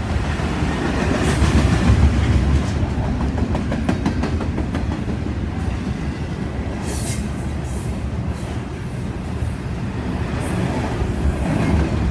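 Double-stack container freight train's well cars rolling past, a steady heavy rumble of wheels on rail. A run of sharp wheel clicks comes a few seconds in, and a brief high hiss about seven seconds in.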